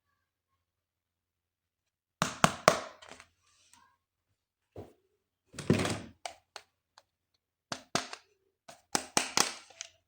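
Spider-Man toys and their plastic packaging handled during unboxing: clusters of sharp clicks, taps and thunks, starting about two seconds in after a short silence.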